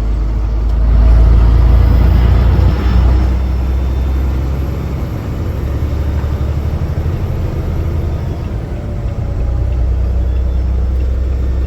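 Semi-truck on the move: a steady low engine and road drone, louder for a couple of seconds about a second in.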